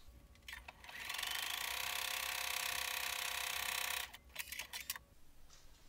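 Electric sewing machine stitching a seam through quilt fabric layers: the motor speeds up with a rising whir about a second in, runs steadily for about three seconds, then stops suddenly. A few light clicks follow.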